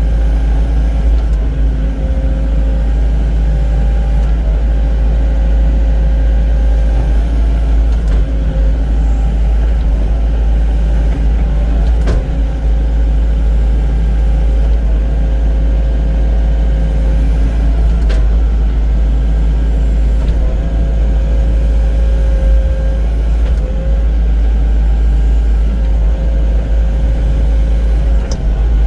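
Excavator's diesel engine running steadily under working load, with a few sharp clicks or knocks now and then.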